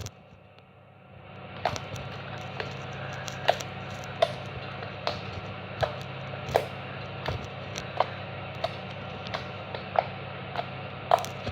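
Foam-bead slime (floam) being poked and squeezed, giving a string of sharp little pops and crackles, a little over one a second, starting about a second and a half in. A steady low hum runs underneath.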